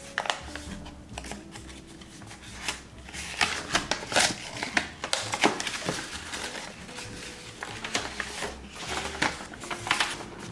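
White paper wrapping rustling and crinkling as it is handled and unfolded from around a small box, with louder crackles in the middle. Soft background music plays underneath.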